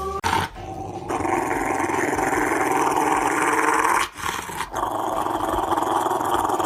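A dog growling in a long, steady rumble, with a short break about four seconds in.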